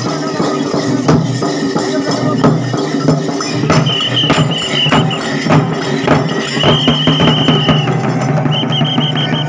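Live percussion music: drums struck in a steady rhythm over a low drone, with a high held note that comes in three times, each lasting about a second or more.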